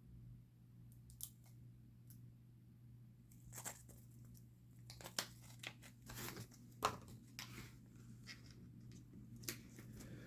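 Faint rustling, tearing and clicking of a small plastic parts bag being opened and handled, to get at the small pins inside.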